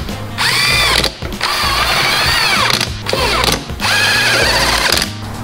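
Red compact cordless drill/driver whining in three runs, its pitch rising and falling within each, as it drives bolts into the throttle body on the intake manifold. Background music with a steady beat runs underneath.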